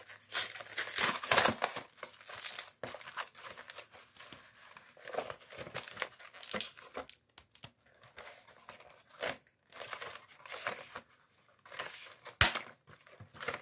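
Pokémon card product packaging crinkling and tearing in irregular bursts as it is unwrapped by hand, with one sharp click near the end.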